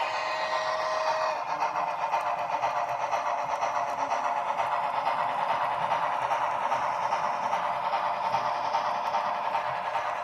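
Model streamlined steam locomotive and passenger cars running on model railroad track: a steady whirring rattle of the motor and wheels. A held tone stops about a second in.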